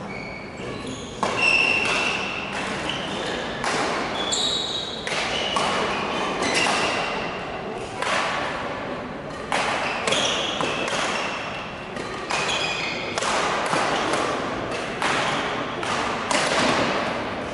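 Badminton rally: rackets striking the shuttlecock back and forth at uneven intervals, with players' shoes squeaking and footsteps thudding on the court, all echoing in a large sports hall.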